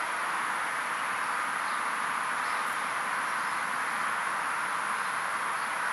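Steady, even background hiss with no distinct events, the same before and after.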